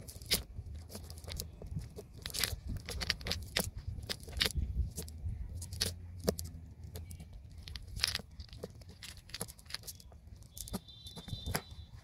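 Hands working small fish out of a wet cast net: irregular clicks, taps and rustles of the nylon netting and of the fish against the raft's wooden deck.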